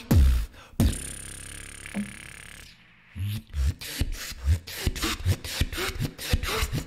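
Beatboxing: a few heavy bass kicks, then a held bass note with a thin high whistle over it, breaking after about three seconds into a fast, driving beat of sharp hits.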